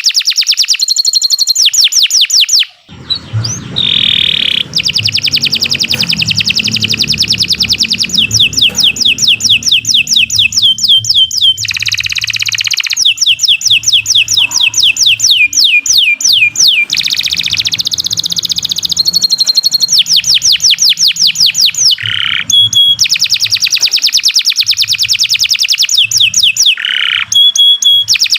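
Domestic canary singing a long, continuous song of fast trills and rolls, high-pitched runs of rapidly repeated notes with only brief breaks. A low background rumble sits underneath from about three seconds in.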